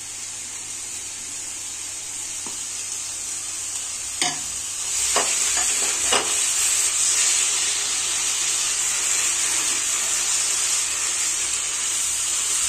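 Grated coconut and thick palm fruit pulp sizzling in ghee in a non-stick frying pan while a silicone spatula stirs them together. The sizzle grows louder from about five seconds in, with a few knocks of the spatula against the pan.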